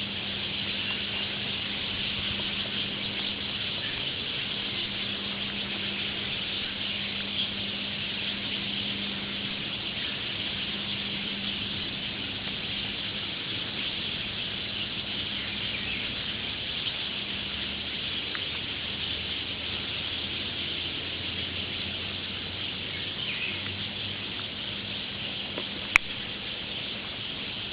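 Dense chorus of many birds calling and chattering at once, a steady mass of high calls, with one sharp click near the end.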